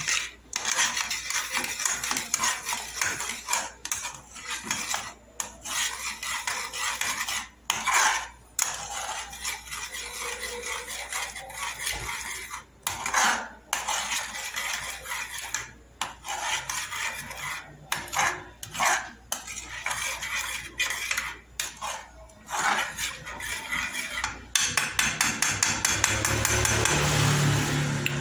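Metal spoon stirring a thick, creamy sauce in a stainless steel saucepan, scraping and clinking against the pan's bottom and sides, with short pauses between bouts. Near the end the strokes turn quick and even.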